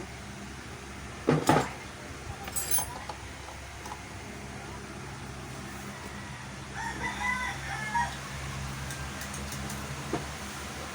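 Two sharp knocks in the first three seconds, the first the loudest, over a steady low hum; about seven seconds in a rooster crows once.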